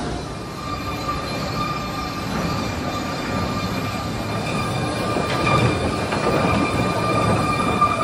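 Sawmill machinery running: a steady mechanical rumble and clatter with a thin, continuous high whine, growing a little louder in the second half.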